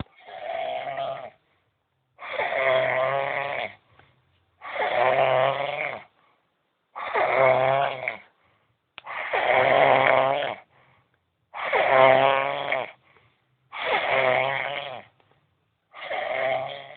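A man snoring in his sleep: a steady run of snores, each about a second and a half long, coming about every two and a half seconds with silence between.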